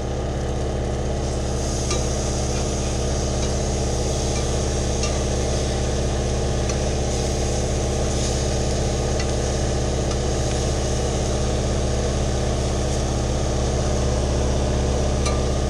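Generator engine running steadily at high speed, a constant even drone, with fish fillets sizzling in butter in a frying pan and a few light clicks of a spatula.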